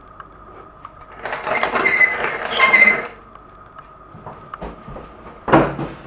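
Wooden hand-crank coffee grinder being cranked: a dense, rapid metallic rattle for about two seconds. About five and a half seconds in, a single knock as the wooden grinder is set down on a table.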